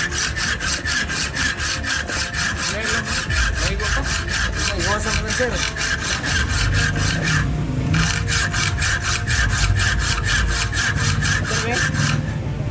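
Hacksaw cutting through a steel concrete nail clamped in a bench vise, in rapid, even back-and-forth strokes. The sawing stops for about half a second roughly seven and a half seconds in, picks up again, and stops shortly before the end.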